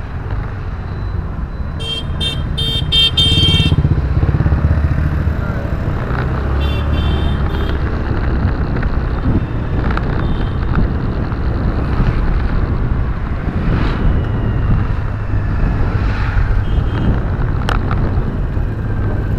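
Steady engine and road rumble heard from inside a moving car, with a vehicle horn sounding a rapid string of short toots about two seconds in and another shorter string of toots around seven seconds in.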